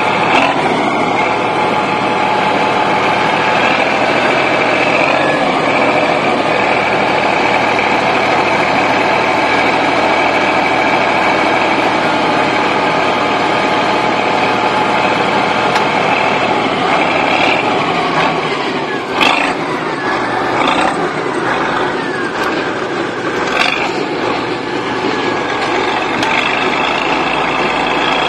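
Bulldozer's heavy diesel engine running steadily under load, with two sharp knocks in the latter part, about four seconds apart.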